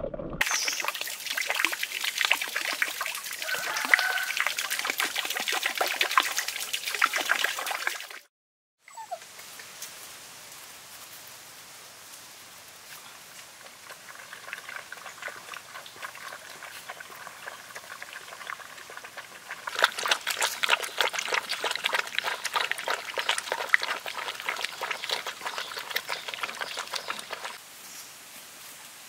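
Water splashing and trickling in a fish pond, which cuts off abruptly about eight seconds in. After that comes a quieter outdoor stretch with a faint steady high tone and dense ticking that swells for several seconds near the end.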